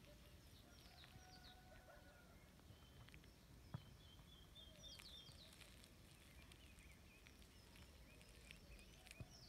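Faint birds calling and chirping here and there, some in short high chirps and some in lower whistles, over a low steady rumble of outdoor background noise. A single sharp click about four seconds in, and another near the end.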